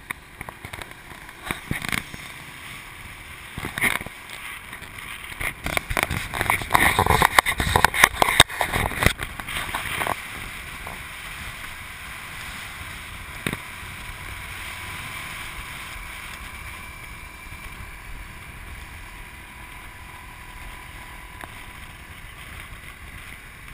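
Riding pillion on a moving motorbike taxi: wind buffets the microphone in loud, irregular gusts for roughly the first half, then settles into a steadier rush of wind and road noise.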